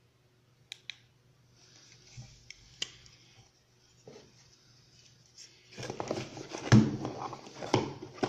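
A plastic LED headlamp with its elastic strap and coiled cord being handled: two sharp clicks about a second in and another a couple of seconds later, then, near the end, louder rustling and knocking of plastic on cardboard as it is lowered into its box. A faint steady low hum runs underneath.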